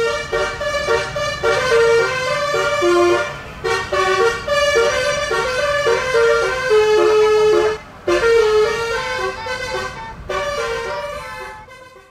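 Telolet basuri bus horn playing a melody of held notes, in three phrases with short breaks about three and a half and eight seconds in.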